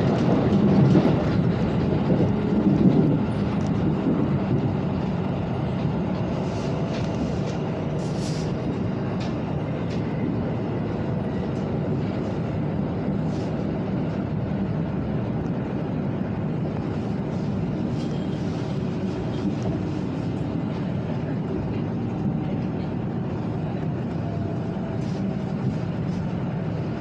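Steady rumble and hum inside a Tokaido Shinkansen passenger car, a little louder for the first few seconds and then even.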